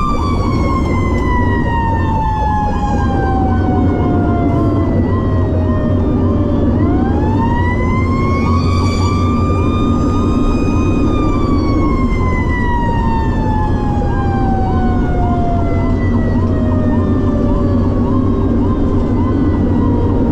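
Fire engine's mechanical siren winding down slowly, spun back up once about seven seconds in, then coasting down again. Under it a faster electronic siren cycles two or three times a second over the steady drone of the engine.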